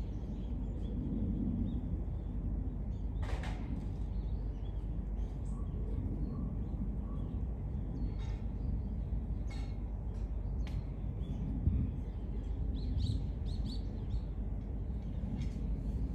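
Outdoor background: a steady low rumble with scattered faint chirps and short clicks, and one louder knock about three quarters of the way through.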